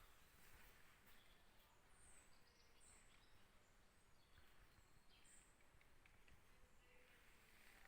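Near silence, with a few faint, short, high chirps.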